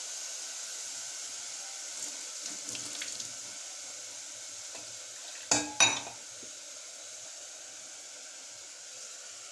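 Masala frying in a pressure cooker on a gas stove, a steady sizzle, with two sharp metal clanks from a steel pot being handled about halfway through.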